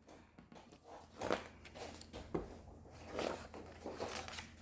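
Faint handling noises: a few soft rustles and light knocks over a low steady hum.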